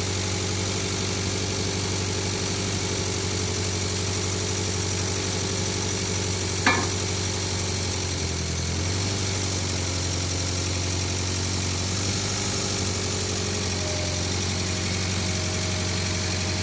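Ford CL-40 skid-steer loader's engine idling steadily, its note dipping briefly about halfway through. A single sharp knock sounds a little before that.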